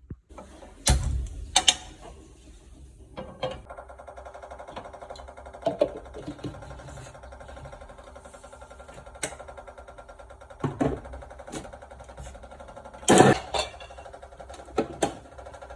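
A series of sharp knocks and clatters at irregular intervals, over a steady hum that sets in about three seconds in.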